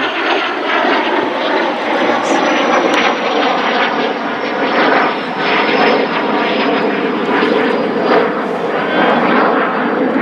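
A loud, steady engine drone, aircraft-like, with a high whine that falls slowly in pitch.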